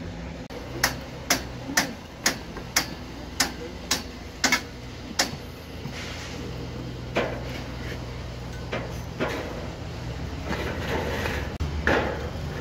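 Sharp, evenly spaced knocks, about two a second, for the first five seconds or so. Then softer scrapes and taps of a bricklayer's trowel working mortar on hollow clay bricks.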